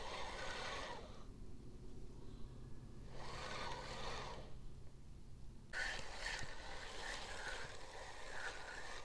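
A spinning reel being cranked to retrieve a lure, first in two short spells of whirring about three seconds apart. About six seconds in the sound changes abruptly to a steadier whir with a chirp roughly every half second.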